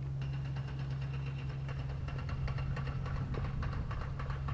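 Harbour cruise boat's engine running as it passes, a steady low hum with a fast knocking clatter over it.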